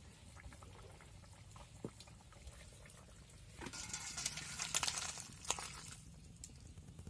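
A pot of fish curry being handled as it is taken off the fire: after a few quiet seconds, a couple of seconds of hissing noise with a few sharp metal clinks.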